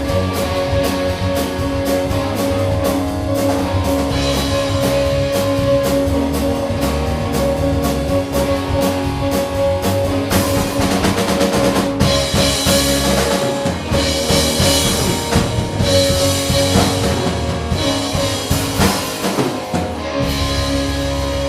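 Live rock band playing an instrumental passage on drum kit and electric guitar. The drums keep a steady beat, and heavier cymbal crashes come in about halfway through.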